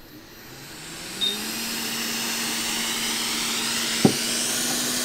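Hot air rework station's handpiece fan spinning up into a steady blowing hiss, its hum rising in pitch over the first second and a half and then holding. A short beep from the station about a second in, and a click about four seconds in.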